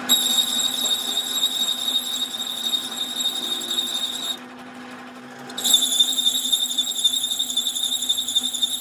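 Metal lathe cutting an internal thread in a truck wheel hub bore: the threading tool gives a loud, high, steady squeal during a cutting pass of about four seconds, stops briefly, then squeals again on the next pass. The lathe's running motor hums underneath.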